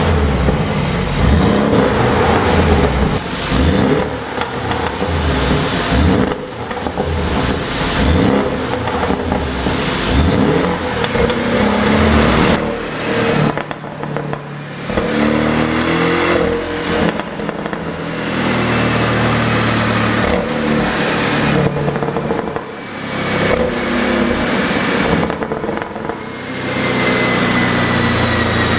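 Porsche 718 Boxster GTS's turbocharged flat-four engine revving up and dropping back repeatedly, with pops and crackles from the exhaust as the throttle closes: the sign of a pop-and-bang engine tune.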